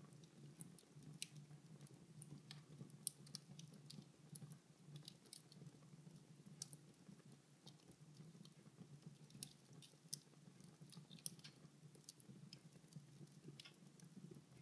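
Fire burning in a fireplace, crackling faintly with irregular small pops and a couple of sharper snaps, over a steady low hum.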